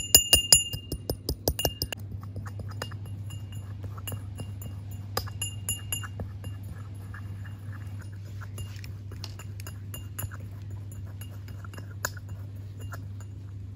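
Brass pestle striking in a brass mortar as saffron is pounded: rapid ringing clinks, about four a second, for the first two seconds, then softer, sparser taps and grinding. A steady low hum runs underneath.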